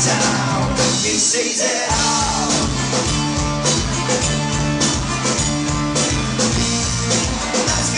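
Folk-punk band playing a song live in a club, heard from the crowd. The bass and drums drop out for about a second near the start, then the full band comes back in with a steady beat.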